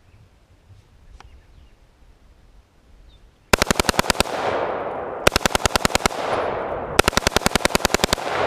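Smith & Wesson M&P 15 AR-15 rifle bump-fired through a bump fire stock: three rapid strings of shots about a second apart, roughly a dozen shots a second, each string ringing out in an echo. The first string starts about three and a half seconds in, and the last and longest runs on for over a second.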